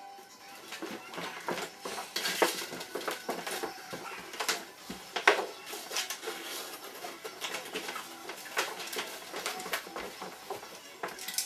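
Irregular clinking, clicking and light knocking of small hard objects being handled, with a couple of sharper knocks a few seconds in.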